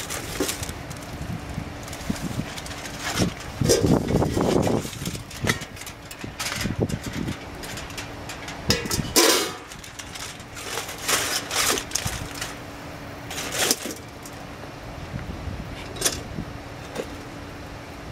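Ash-covered aluminum foil crinkling and rustling in bursts as it is lifted out of a metal pan and dumped, with scattered knocks and scrapes of metal pans and a cast iron Dutch oven. A faint steady hum sits underneath.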